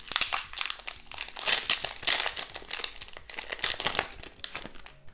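Foil wrapper of a Pokémon trading card booster pack crinkling and tearing as it is ripped open by hand, the crackling dense and continuous before dying down near the end.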